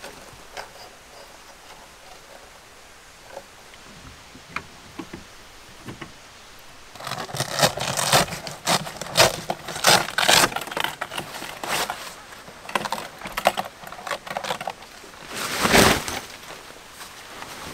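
Camping gear being handled by hand: a few light clicks, then from about seven seconds in a run of rustling and scraping of fabric and gear. Near the end comes a loud swish as a large black fabric shelter is shaken out of its bag.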